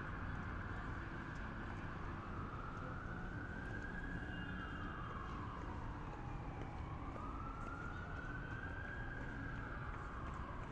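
Emergency vehicle siren sounding a slow wail, its pitch sliding down and back up over several seconds, above a steady low rumble.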